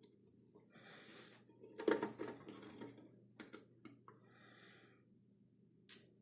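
Screws being taken out of a metal instrument case with a screwdriver: scattered clicks and short metallic rattles, loudest in a clatter about two seconds in.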